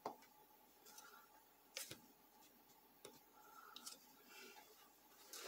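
Near silence: quiet room tone with a handful of faint clicks and taps from handling the camera while it is adjusted.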